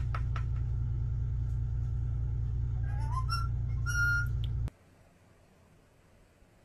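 Indian ringneck parakeet tapping its beak on the floor, a few quick taps at the start, then whistling: a short rising whistle about three seconds in and a steady high whistle near four seconds. A loud steady low hum runs underneath and cuts off just under five seconds in.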